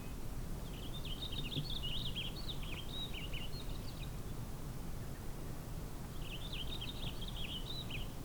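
A songbird singing two long phrases of quick, jumbled chirps: one starting about a second in and lasting about three seconds, the other near the end. Under it runs a steady low background rumble.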